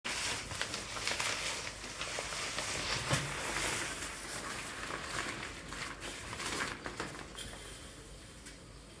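An AC servicing cover sheet rustles as it is handled and fitted around a split air conditioner's indoor unit, with a sharp knock about three seconds in. The rustling thins out near the end.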